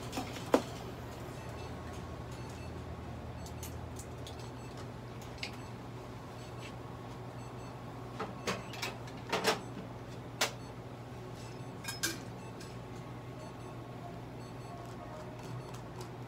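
Light handling noises while a cat is brushed on a stainless-steel exam table: a few scattered clicks and knocks, bunched about eight to twelve seconds in, over a steady low electrical hum.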